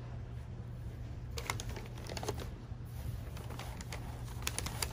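Christmas wrapping paper crinkling and crackling in a cardboard box as a cat noses through it and a hand reaches in, in two spells of crackles, about a second and a half in and again near the end, over a low steady hum.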